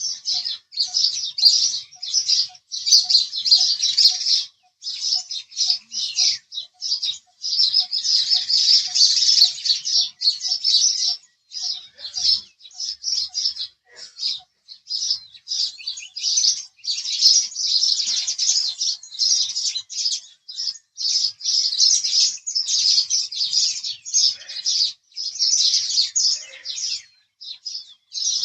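House sparrows chirping: a dense, unbroken stream of short, high, overlapping chirps with only brief pauses.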